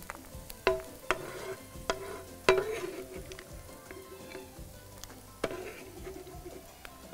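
Nuts frying in hot oil in a frying pan with a faint sizzle, stirred with a metal perforated skimmer. The skimmer knocks against the pan several times, each knock a sharp clink with a short ring. The loudest comes about two and a half seconds in.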